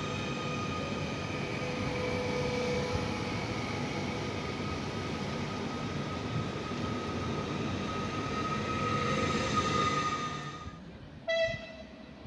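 Srbija Voz Stadler FLIRT electric multiple unit pulling out past the platform: a steady electric whine over rolling rumble that fades away about ten seconds in. Near the end comes one short horn toot.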